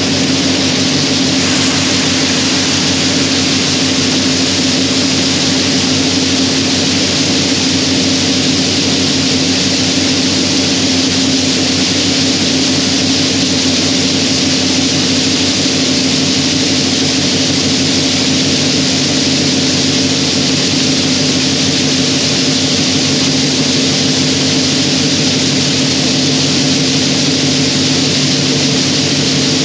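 John Deere 6620 combine running steadily under harvest load while shelling corn: the engine and the threshing machinery make one continuous, even din.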